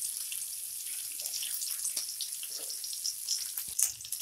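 Curry leaves and ginger strips sizzling in hot oil in a kadhai, a steady hiss with scattered crackles as the tempering (tadka) fries.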